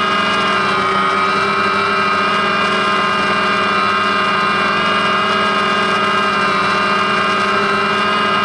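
DJI Phantom quadcopter's motors and propellers whining steadily at close range, the whine wavering slightly in pitch as the drone holds its flight.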